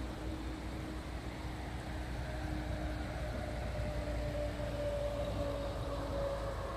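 Road traffic: vehicle engine hum and tyre noise, steady with a faint held tone that drifts slowly lower, swelling a little from about two seconds in.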